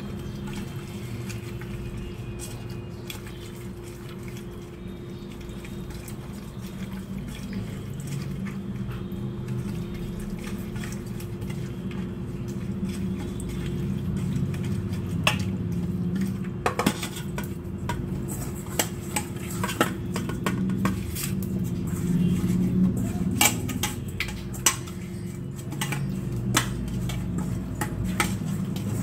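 Fingers mixing peeled prawns with turmeric in a stainless steel bowl, with the bowl giving metallic clinks and knocks as it is handled and tilted; the clinks come thick and sharp from about halfway on, over a steady low hum.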